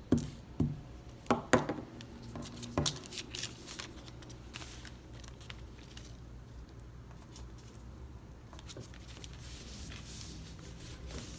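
Paper craft pieces being handled and glued on a tabletop: about five sharp knocks in the first three seconds, then faint rustling and light ticks.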